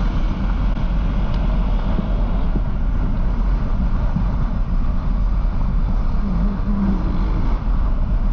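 Motorcycle running steadily, a constant low rumble under a dense rushing noise.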